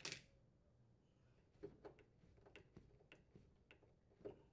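Faint, irregular ticks and clicks of a Phillips head screwdriver turning out a refrigerator toe kick plate's mounting screw, with one sharper click right at the start.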